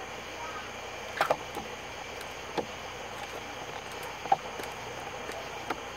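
A catfish's hide being pulled off by hand: a handful of short, sharp clicks and snaps over a steady background hiss.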